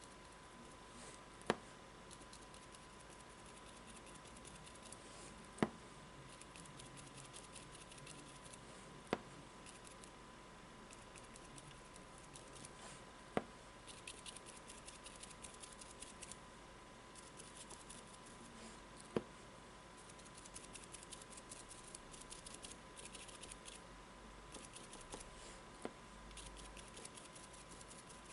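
Round stippling brush dabbing paint onto corrugated cardboard: quiet rapid taps and scratches, thicker in the second half, with a few sharper single knocks several seconds apart. A faint steady high tone runs underneath.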